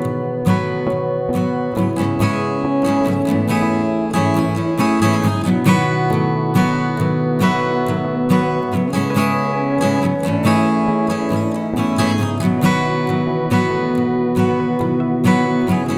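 Background music played on acoustic guitar, plucked and strummed notes with a steady pulse.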